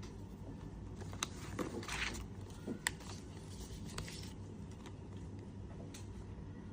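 Handling noises from iPhone back glass panels and their packaging: a few sharp, separate clicks and a short rustling scrape about two seconds in, over a steady low hum.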